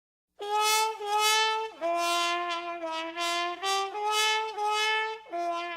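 A single horn from a street brass band playing a melody line, one note after another in short phrases with brief gaps. It starts abruptly about half a second in, out of dead silence, and fades off near the end.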